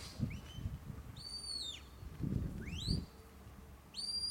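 Sheepdog handler's whistle commands to a herding dog: a short rising pip, then a flat high whistle that drops off at its end, a quick upward sweep, and a long steady high whistle starting near the end.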